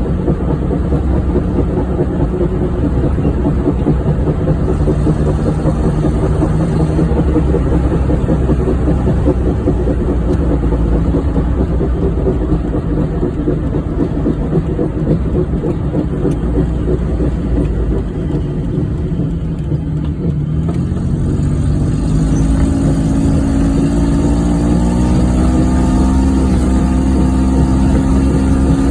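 1994 Geo Metro driving, its engine and road noise running steadily. The engine note dips briefly about two-thirds of the way through, then climbs steadily as the car accelerates. The car has a bad wheel bearing.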